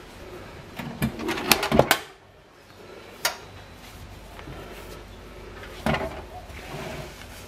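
Metal hand safe being handled: a quick run of clicks and knocks about a second in, then single sharp clicks about three and six seconds in.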